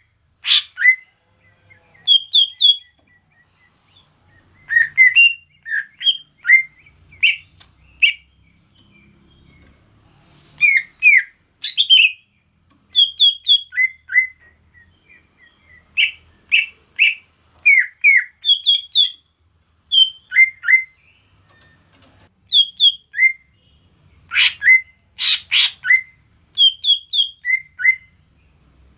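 Green leafbird (cucak ijo) singing: short, sharp high chirps and whistled notes, often in quick runs of two to four, with brief pauses between phrases, over a steady high hiss.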